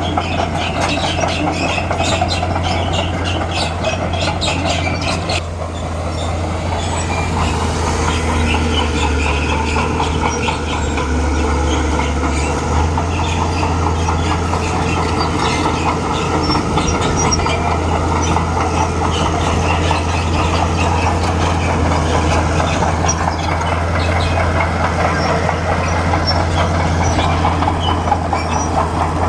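Bulldozer's diesel engine running steadily under load, with the rattling clank of its steel tracks, the clatter heaviest for the first five seconds.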